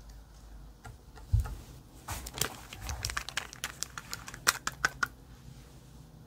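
Slime and makeup being worked by hand for ASMR: a dull thump about a second and a half in, then about three seconds of quick sticky clicks and crackles, loudest near the end.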